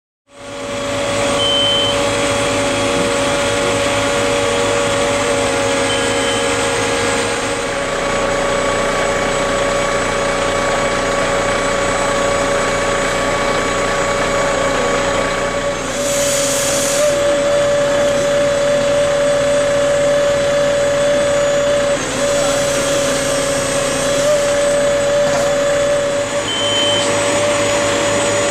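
A fire brigade aerial platform truck's engine running steadily at raised speed to drive the hydraulics, with a steady whine. Short high beeps sound three times, and a brief hiss comes about halfway.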